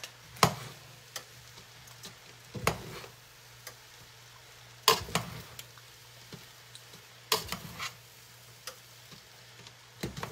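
Metal tongs knocking and scraping against a large stainless steel pot as pancit noodles are tossed, in irregular clacks every second or so, over a faint sizzle and a steady low hum.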